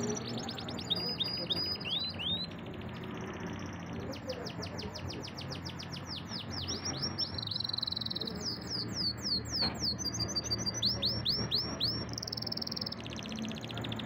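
Domestic canary singing a long, varied song: fast trills and rapid runs of falling notes, broken by short held whistled notes.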